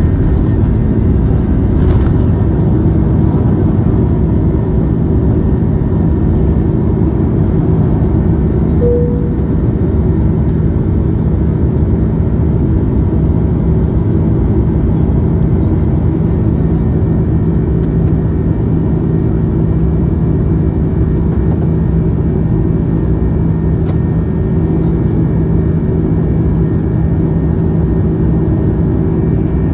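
Jet airliner's turbofan engines at takeoff power, heard from inside the cabin: a steady loud roar with steady humming tones through liftoff and the first climb. A brief higher tone sounds about nine seconds in.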